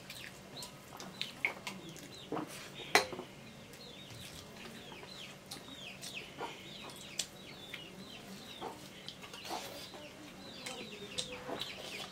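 Chickens calling: a steady stream of short, high, falling chirps, with scattered clicks from plates at the table and one sharp knock about three seconds in.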